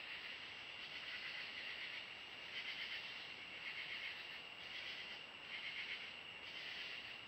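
Night-calling insects in chorus: a steady high trill with louder, finely pulsed bursts repeating about every second to second and a half.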